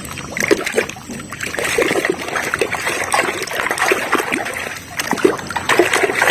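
Water splashing and trickling in quick, irregular bursts as a toy vehicle is washed by hand.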